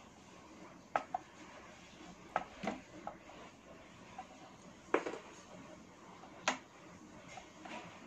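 Light, irregular clicks and taps of oil pastel sticks being handled, picked up and set down on the paper and table, with a faint rubbing between them.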